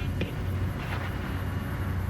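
A steady low hum over a background hiss, with a faint tick about a quarter-second in.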